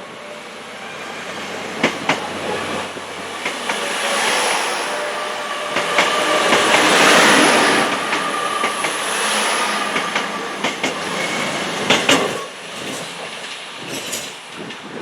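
A train passing close by: its rumble builds to a peak about seven seconds in and then fades, with sharp clicks of the wheels over rail joints.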